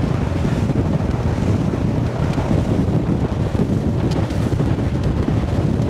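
Heavy wind buffeting the microphone on a boat running at speed, over the steady sound of the outboard engine and water rushing past the hull, at about 38 mph cruise.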